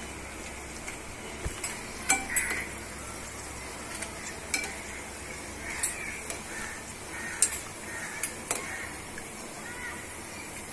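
Hot oil sizzling steadily as fried potato pakoras are lifted out with a wire-mesh skimmer and a slotted steel spoon. The metal tools clink sharply against the pan several times.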